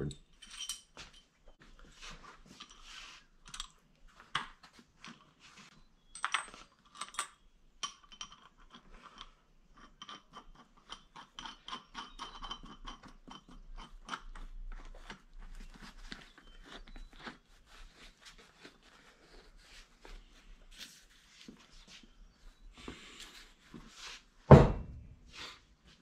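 Small clicks and rattles of a long steel bolt being handled and pushed through the centre of a spool of 550 paracord. There is a single loud thump near the end.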